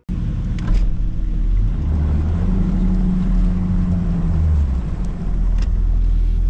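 Bass boat outboard motor running underway: a loud, low rumble with a drone that swells in the middle.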